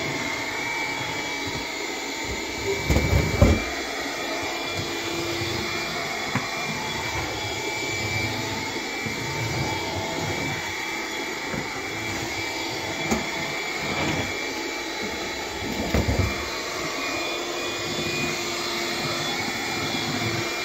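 Bissell PowerGlide cordless stick vacuum running steadily on low power over hard floor, its motor carrying a high-pitched whine that the owner says sounds like it's clogged, though no clog was found. Low thumps of the head knocking about, one about three seconds in and another about sixteen seconds in.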